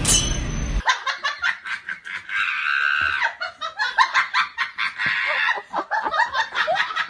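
A person laughing in quick repeated bursts, after music that stops about a second in.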